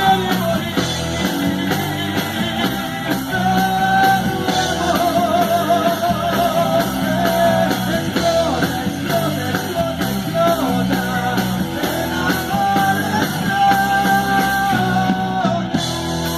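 Rock song playing: a singing voice holding long notes with vibrato over a full band with guitar and a steady beat.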